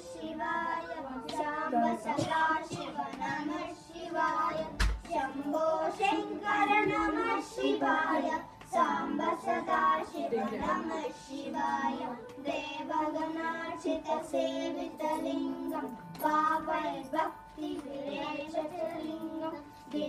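Three children singing a Sanskrit devotional hymn to Shiva together in unison.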